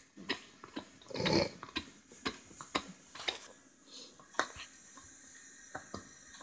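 Two small dogs play-fighting: a run of small clicks and rustles from their mouths and paws working at each other on a fabric couch cover, with one louder noisy burst about a second in.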